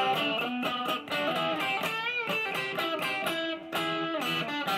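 Electric guitar played with a pick: a run of quick single-note lead phrases, with one note bent up and let back down about two seconds in.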